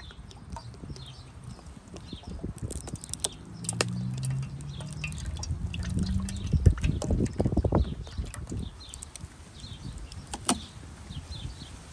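Water pouring in a thin stream into a metal pot, splashing and trickling, louder partway through and stopping about two-thirds of the way in.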